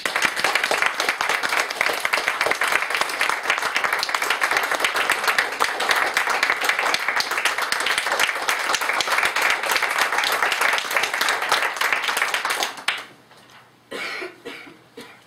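Audience applauding with many quick claps for about thirteen seconds, then dying away sharply. A few short, quieter sounds follow near the end.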